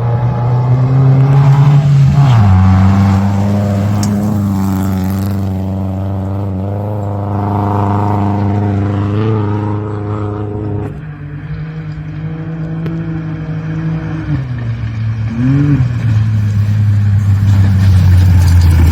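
Rally car engine running hard on a gravel stage. Its pitch falls and rises several times, with a sudden drop about eleven seconds in and a quick blip a few seconds later.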